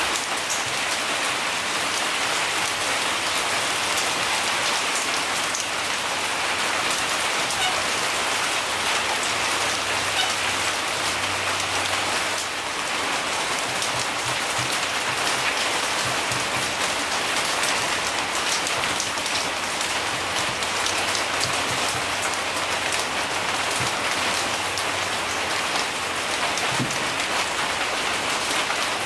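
Rain falling on a metal shed roof, a steady dense patter of drops.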